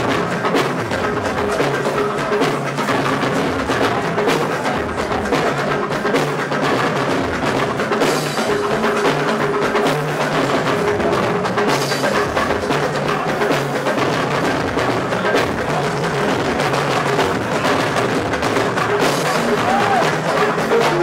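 Lively percussion-heavy music: busy drums and hand percussion over low pitched notes that change in steps.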